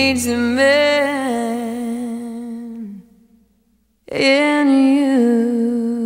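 Female voice singing long, wordless held notes in a slow ballad. It cuts out for about a second midway, then comes back on another long sustained note.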